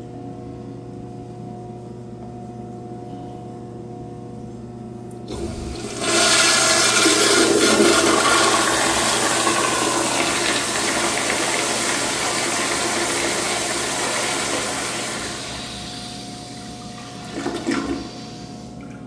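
American Standard Cadet toilet on a flushometer valve, with its supply pressure boosted, flushing: about five seconds in the valve opens with a sudden loud rush of water that eases off over about nine seconds, with a brief louder burst near the end.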